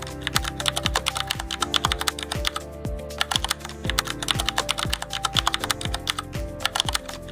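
Rapid keyboard-typing clicks of a typewriter-effect sound, laid over background music with a steady kick-drum beat.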